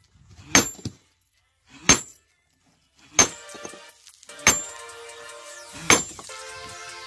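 Sledgehammer blows striking a stone block, five sharp strikes about one every 1.3 seconds. Background music comes in about three seconds in.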